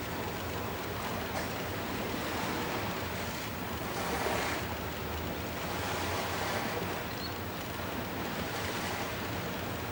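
Steady rushing noise of wind and sea waves, swelling louder briefly twice.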